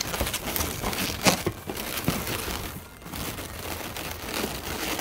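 Latex modelling balloons rubbing against each other in short irregular scrapes as a red modelling balloon is wrapped around balloon-flower stems to tie on a bow, with a brief lull about three seconds in.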